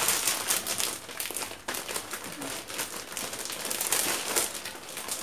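Clear plastic packing bag crinkling irregularly as crochet pieces are handled and pushed into it.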